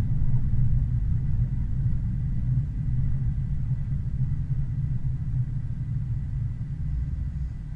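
Steady low rumble of a car driving, engine and road noise, easing off as the car slows behind a queue of cars.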